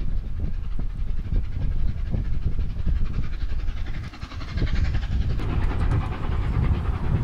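LNER Pacific steam locomotive working hard past at speed, its exhaust beats coming as a rapid chuff over a heavy rumble. From about five seconds in, the rushing of the coaches rolling by rises as the engine passes.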